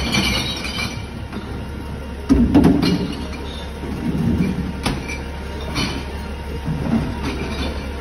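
Garbage truck's engine running steadily while plastic wheelie bins are handled at its rear bin lifter, with a loud clatter about two and a half seconds in and several lighter knocks after it.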